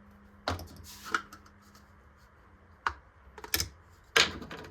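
About five scattered light clicks and knocks from handling body-filler supplies, the hardener tube and mixing tools, over a faint steady hum.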